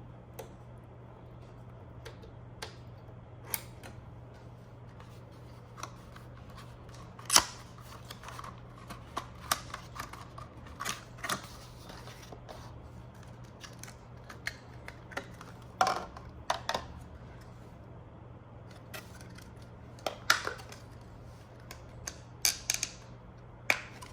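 Scattered sharp clicks, snaps and light knocks of hands working on a Synology RS1221RP+ rackmount NAS while adding RAM. They come at irregular intervals, with a few louder snaps, over a steady low hum.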